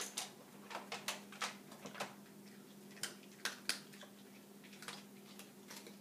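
Small dog chewing dry kibble: irregular sharp crunches, thinning out after about four seconds, over a faint steady hum.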